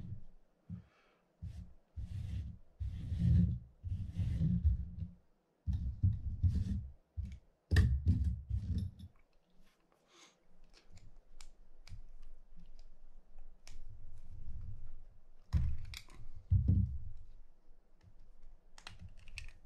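Handling noise from a fishing reel's metal side plate being worked by hand: small clicks and low knocks in irregular clusters, as its screws and chrome ring are taken off.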